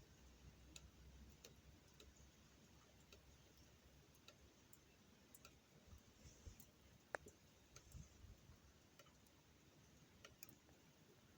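Faint, irregular ticks and clicks over near silence, with one sharper click about seven seconds in.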